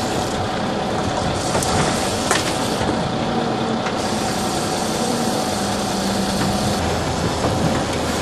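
Sport-fishing boat's engine running steadily while the boat trolls, under a wash of water and wind noise, with a few faint knocks in the first few seconds.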